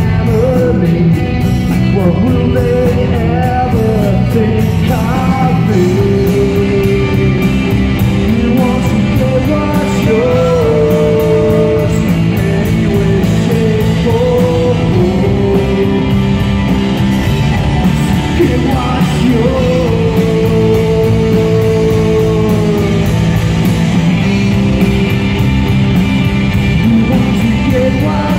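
Rock band playing live and loud: a male singer over electric guitar, bass guitars and drums.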